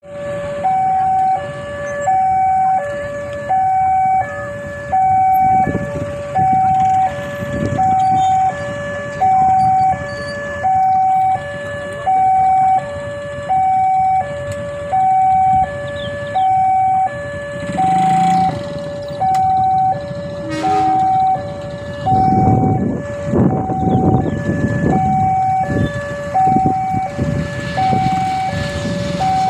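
Railway level-crossing warning alarm sounding: an electronic two-tone signal, high then low, repeating steadily, the signal that a train is approaching. Near the end a low engine rumble rises beneath it.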